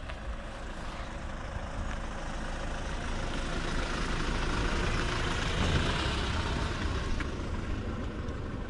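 A motor vehicle passing close by: engine rumble and road noise swell to a peak about midway, then fade.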